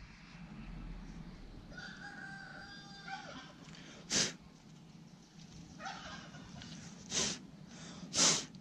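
A rooster crowing faintly: one long crow about two seconds in and a shorter call around six seconds. A few short, sharp rustles come from close by and are the loudest sounds.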